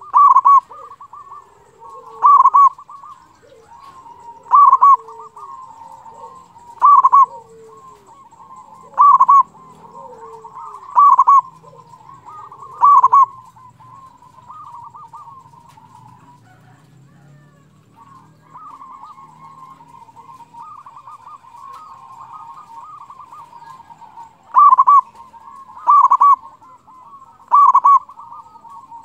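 Zebra dove (perkutut) cooing: loud calls repeated about every two seconds, then a pause of about ten seconds in which only softer rolling coos carry on, before the loud calls resume near the end.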